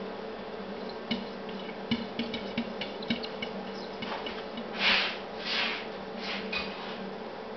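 A cat's paws tapping and scraping at a glass pane: a run of light taps for the first few seconds, then a few louder rubbing squeaks across the glass around the middle. A steady low hum runs underneath.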